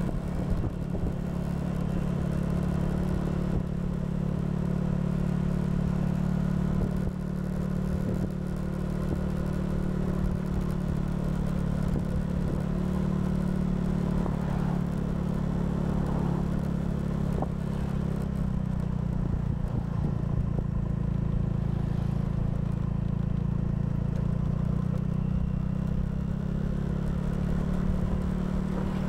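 Honda scooter's single-cylinder engine running steadily at cruising speed, heard from the rider's seat. Its pitch eases down briefly about seven seconds in and again a little past halfway.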